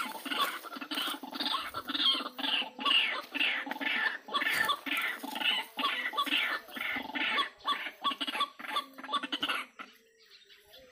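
White-breasted waterhen (ruak-ruak) calling in a fast repeated series, about three calls a second, which stops shortly before the end.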